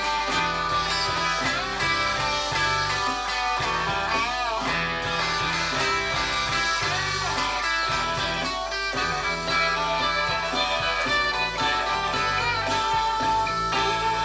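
Electric guitar played along with a recorded rock track, a steady repeating bass line underneath; the guitar notes bend and waver in pitch about four seconds in.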